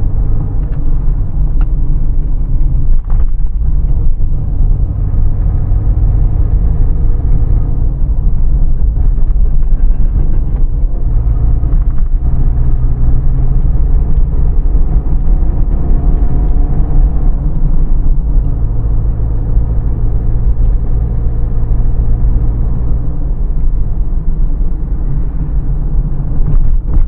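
Car driving at a steady cruise, heard from inside the cabin: a loud, steady low rumble of engine and tyres on the road, with a faint engine tone that drifts gently up and down.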